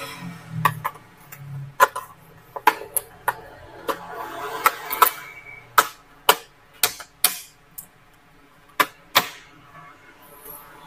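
Irregular sharp clicks and taps of small plastic and metal laptop parts being handled as the laptop's bottom cover is taken off, with soft rubbing between them.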